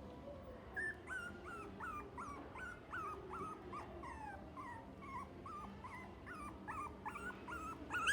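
Cavalier King Charles Spaniel × Toy Poodle mix dog whimpering, a run of short, high-pitched whines at about three a second, starting about a second in.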